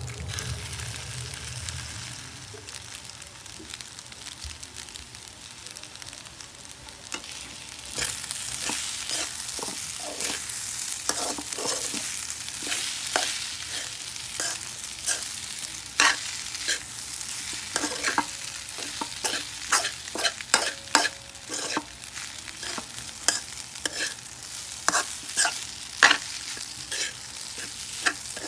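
Fried rice sizzling in a metal wok as a metal spoon stirs and scrapes it, with frequent sharp clicks of the spoon against the pan. The sizzle grows louder about eight seconds in.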